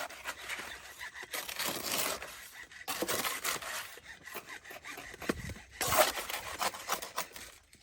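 Shovel scraping and scooping through mortar in several coarse strokes of about a second each, at uneven intervals; the loudest comes about six seconds in.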